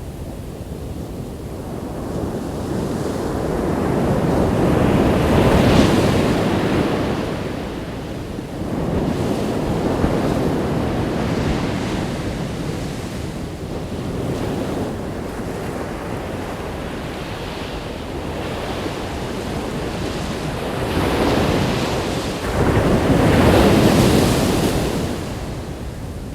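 Ocean surf breaking and washing up a beach in slow surges, loudest about a quarter of the way in and again near the end, with wind buffeting the microphone.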